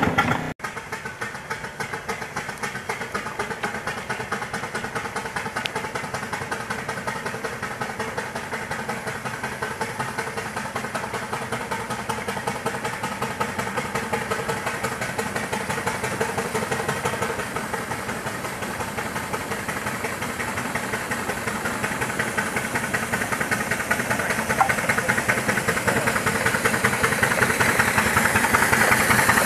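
A 4-inch-scale live-steam Fowler traction engine running along a road, its exhaust chuffing in a fast, even beat. It grows louder near the end as it draws close.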